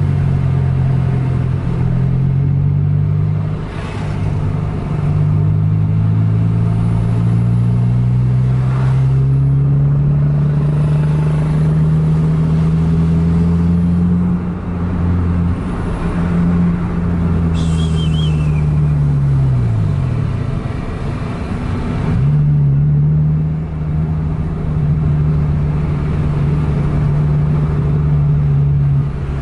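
Road vehicle engine running under load, heard from inside a moving car: its pitch climbs slowly through the first half, holds, falls away about two-thirds in, then picks up again a couple of seconds later.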